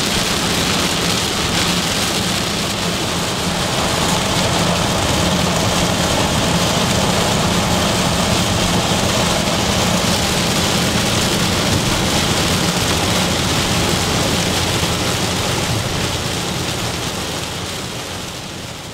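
Heavy rain falling on a moving car's roof and windshield, heard from inside the cabin, with a steady low hum of engine and tyres underneath; it fades out near the end.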